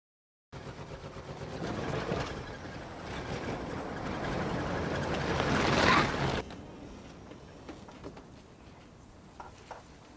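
A motor vehicle approaching and getting louder, then cutting off suddenly about six seconds in, leaving a quieter background hiss with a few faint clicks.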